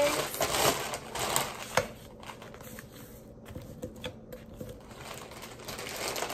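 Plastic mailer bag rustling and crinkling as it is handled, with a sharp tap a little under two seconds in; quieter for a few seconds, then rustling again near the end.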